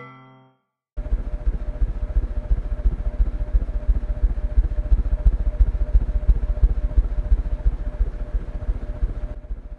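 Ceiling fan running, a loud low rapid fluttering with a faint steady hum, starting suddenly about a second in.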